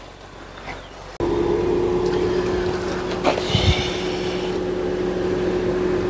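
Suzuki Jimny idling with a steady hum that comes in abruptly about a second in. A short thump and a brief hiss sound partway through.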